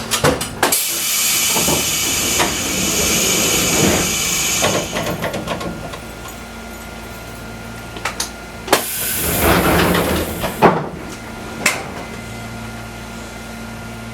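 Compressed air hissing in two bursts from the stopped Fukui Railway 200 series railcar's pneumatic equipment. The first burst lasts several seconds; the second, shorter one comes about halfway through. Scattered clicks and knocks sound over a steady low hum.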